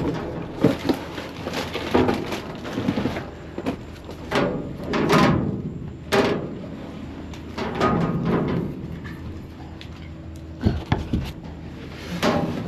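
Knocks, scrapes and cardboard rustling as someone climbs out of a rusty steel dumpster using a metal folding step stool, with a few sharp knocks about 11 seconds in.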